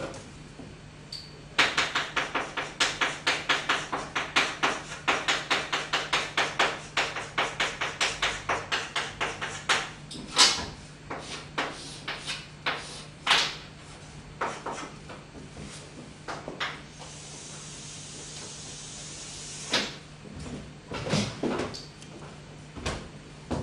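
Chalk writing on a blackboard: a quick run of tapping, scraping strokes at about four a second, then slower single strokes and a longer scrape a few seconds before the end.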